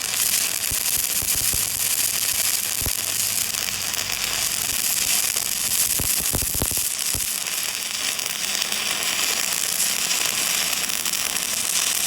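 Stick (arc) welding: the electrode's arc gives a steady crackling hiss, with occasional sharper pops.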